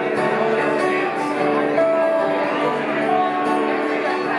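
Acoustic bluegrass band playing an instrumental passage: banjo, fiddle, acoustic guitar and dobro together, with a couple of long held notes standing out in the middle.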